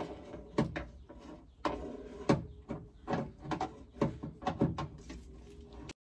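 Irregular metallic clicks and knocks of a Phillips screwdriver and hands working at a door-handle screw inside a stripped car door, tool tapping on the door's inner metal panel. The sound cuts off suddenly near the end.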